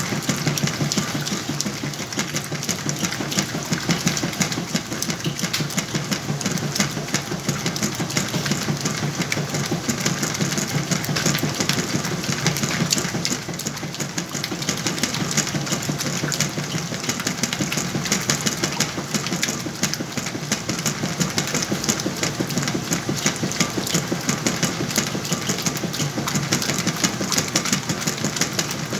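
Whirlpool washing machine running with a steady motor hum and a fine, even rattle, loaded with sheets and pillows.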